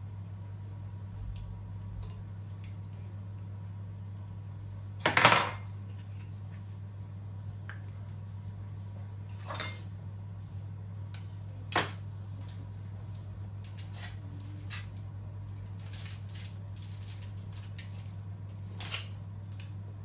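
Kitchen utensils and dishes being handled, with scattered clinks and knocks, the loudest about five seconds in, over a steady low hum.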